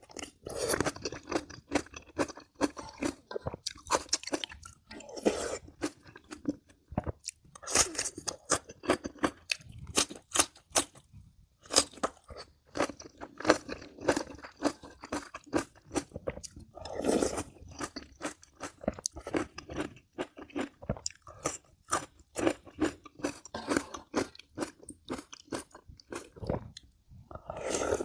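Close-miked chewing with many irregular, sharp crunches: a person eating mouthfuls of kimchi with scorched rice (nurungji).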